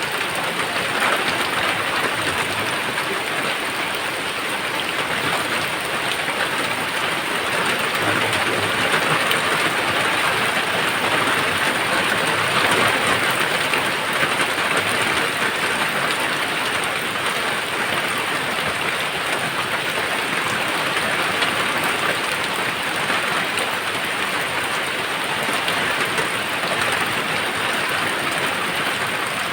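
Steady rain pouring down, an even, unbroken hiss of drops with no thunder standing out.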